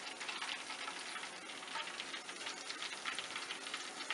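Hot oil crackling and sizzling in a pan in which green chilies and curry leaves have just been fried, a steady dense patter of small pops.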